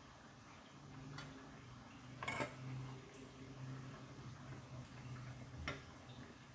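A metal spoon knocking against a stainless steel pot three times as broth is scooped out, the loudest knock about two seconds in, over a low steady hum.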